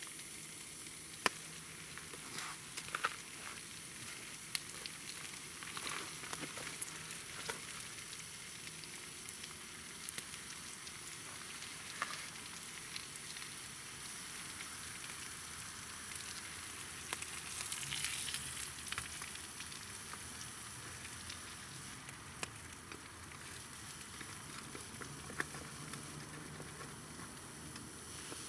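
Food frying in a pan: a steady sizzle with scattered sharp pops, flaring louder briefly about eighteen seconds in.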